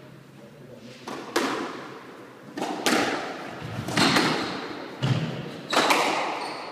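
Squash rally: the ball is struck by rackets and slaps off the court walls. Sharp hits come every second or so, mostly in quick pairs, and each rings on in the court's echo.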